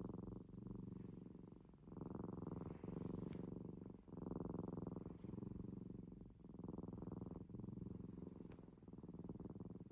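Domestic cat snoring, a low snore on each breath in a steady in-and-out rhythm.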